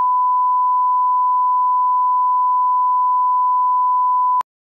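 Television colour-bar test tone: one unbroken, steady high beep that cuts off suddenly with a click near the end.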